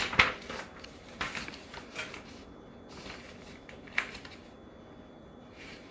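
Paper sheets rustling as printed pages are handled and shuffled, with a sharper rustle just after the start and a few smaller ones later.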